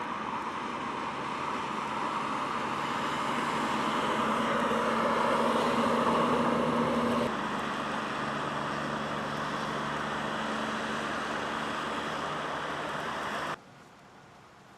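Snowplow trucks on a highway: engine and tyre noise grows louder over the first seven seconds as a truck approaches, then changes abruptly to a steadier road noise, which cuts off suddenly near the end, leaving a faint hiss.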